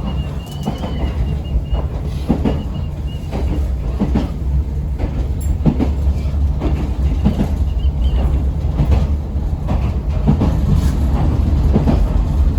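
Local electric train running along the line, heard from inside the carriage: a steady low rumble with irregular knocks of the wheels over rail joints and a faint steady high whine, growing slightly louder.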